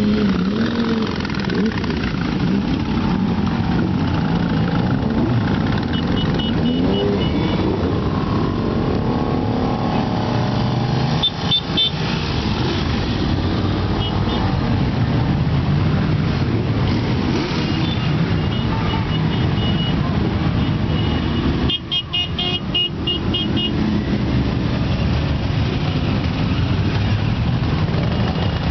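A procession of motorcycles riding slowly past, many engines running and revving together. Horns toot briefly several times.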